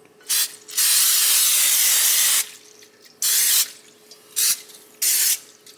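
Aerosol cooking spray can hissing as it coats a glass baking dish: a short spritz, one long spray of about a second and a half, then three short spurts.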